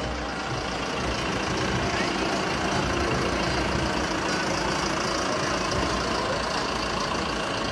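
A tractor engine running steadily as it tows a parade float, with crowd chatter underneath.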